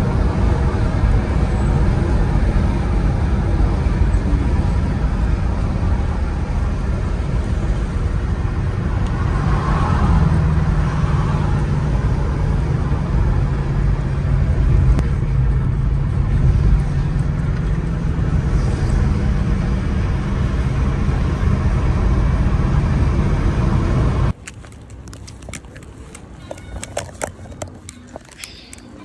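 Steady road and engine rumble heard inside a car cabin at highway speed. About 24 seconds in it cuts off abruptly to a much quieter stretch with scattered light clicks and knocks.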